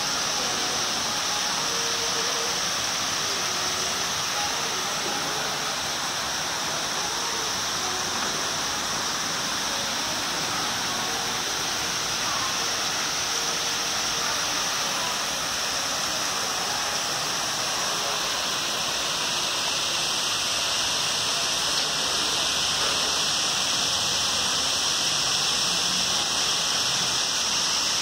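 Steady rushing hiss of water from a small garden waterfall and fog-misting sprays.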